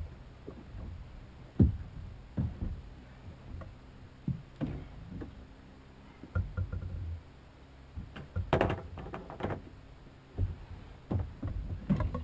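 Irregular knocks and thumps on a small boat's hull as a man moves about and handles gear aboard, the sharpest thump about a second and a half in, with a brief rustling clatter near the middle.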